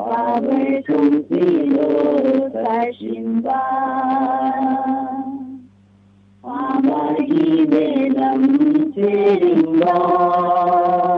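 Unaccompanied voice singing in a chant-like style, two long phrases with drawn-out held notes and a short pause about halfway through, over a steady low hum.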